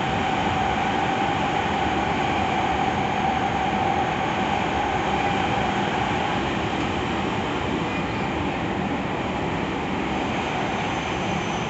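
Nagoya Municipal Subway 6050-series train running between stations, heard from inside the car: a steady rumble of wheels on rail with a held mid-pitched tone that fades about halfway through.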